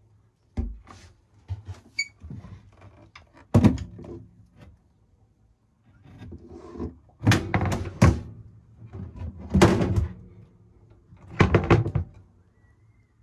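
Thuds and clatter of galley lids and fittings being handled: a top-loading cool-box lid shutting about half a second in, then several more bursts of knocking and rattling as the hinged stove cover and gimballed stove are worked.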